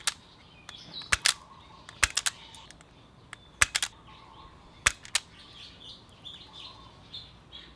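Automatic wire stripper clicking sharply as its jaws are squeezed shut and snap back open on the wire ends, mostly in pairs, about four times, the last a little past halfway.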